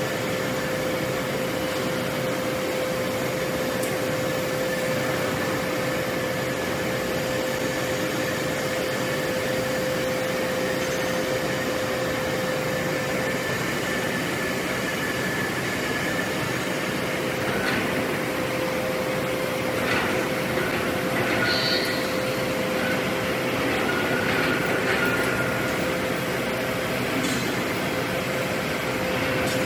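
Steady industrial din of a forge shop at an open furnace: blowers and machinery running with a constant hum that drops out for a few seconds midway. In the second half come a few short metallic clanks and squeals as a red-hot steel forging is hoisted out of the furnace.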